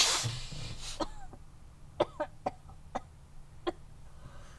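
A woman's loud, rough breath, then a string of short, sharp coughs about two seconds in.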